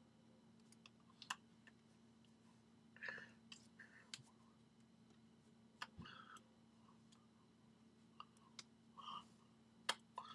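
Faint, irregular clicks and light clatter, about a dozen over ten seconds with no rhythm, over a low steady hum.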